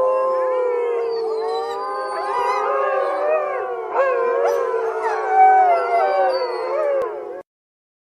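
Several wolves howling together in a chorus: one low, steady howl held under other voices that glide up and down. The chorus cuts off abruptly near the end.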